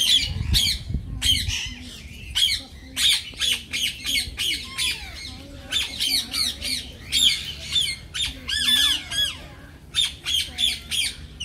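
A flock of caged lutino parakeets chattering: many quick, high-pitched squawks and chirps overlapping one another without pause.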